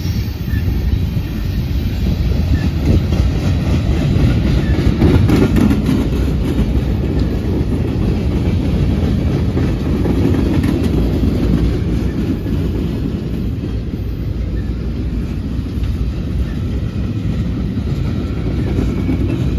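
Freight cars rolling past close by: a steady, loud rumble of steel wheels on the rails, with clickety-clack as the wheels pass over rail joints.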